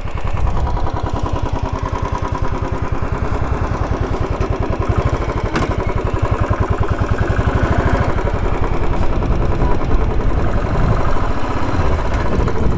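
Royal Enfield Thunderbird motorcycle's single-cylinder engine running at low revs, its firing pulses coming evenly and growing a little louder, with one sharp click about five and a half seconds in.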